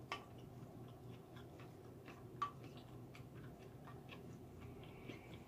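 Quiet eating: soft chewing and faint clicks of a wooden spoon in a glass bowl, with two sharper clicks, one just after the start and one about two and a half seconds in.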